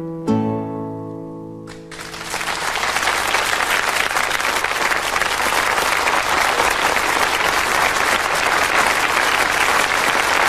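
A last chord strummed on an acoustic guitar rings out and fades, then the audience breaks into applause about two seconds in and keeps clapping steadily.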